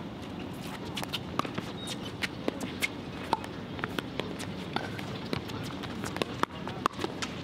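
Pickleball rally: sharp pops of paddles striking the plastic ball again and again, mixed with players' footsteps on the hard court.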